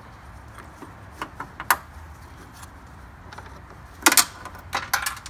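Hand work on a car's headlight assembly and its bolts: a few scattered light clicks, then a louder clatter of quick knocks about four seconds in and a few more just before the end.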